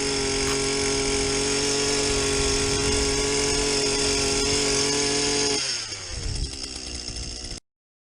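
Power ice auger running steadily, drilling a hole through the ice, then spinning down with a falling pitch near the end before the sound cuts off suddenly.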